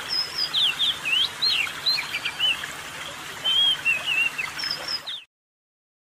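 Oriental magpie-robin singing: a quick string of varied clear whistles and chirps, rising, falling and wavering in pitch, that cuts off suddenly about five seconds in.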